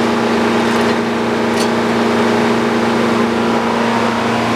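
Frick OO circular sawmill running, a steady drone holding one even pitch.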